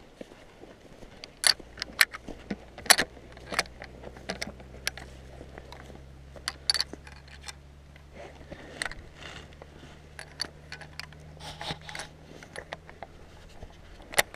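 Handling noise close to the microphone: scattered clicks, taps and scrapes of clothing and a rifle being shifted and held. A faint low steady drone sits under it from about a second in.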